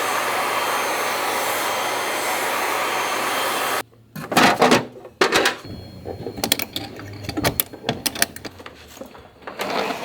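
Steady rushing of an electric air-moving motor, cut off suddenly about four seconds in, followed by irregular clicks and clatter of parts being handled.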